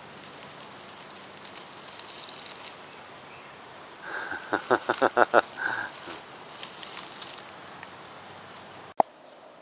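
Outdoor background hiss, with a quick run of about seven short, high chirps around the middle and a single sharp click near the end.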